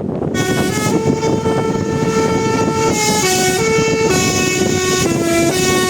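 Tour bus telolet horn playing a tune of held notes that step up and down in pitch, starting a moment in, over a steady low rumble.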